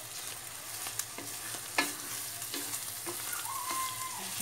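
Ground liver and onions sizzling in a stainless steel pan as a wooden spatula stirs them, with a few sharp knocks of the spatula against the pan.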